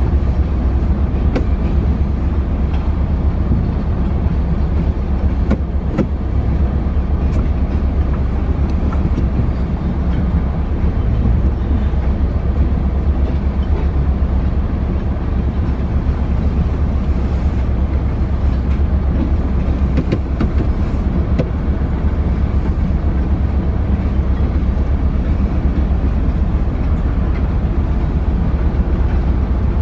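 Freight train of tank cars rolling steadily past, a continuous low rumble heard from inside a car, with a few sharp clicks scattered through it.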